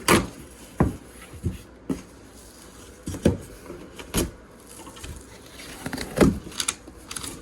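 Irregular knocks and bumps as a boxed grow tent kit is unpacked and its parts are handled and set down, about a dozen, the loudest just after the start and a little past six seconds in.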